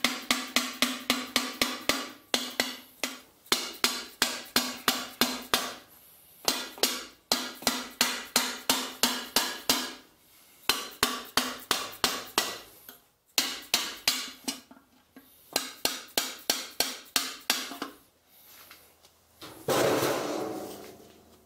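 Rapid runs of taps from a plastic dead blow hammer knocking the cast bearing plate of a Kohler K301 engine off the crankshaft, about five blows a second, with short pauses between runs and a ring from the metal at each blow. Near the end a longer, louder scraping sound as the plate comes free.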